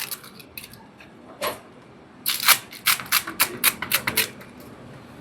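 Light clicks and taps: a single tap about a second and a half in, then a quick run of clicks, several a second, for about two seconds.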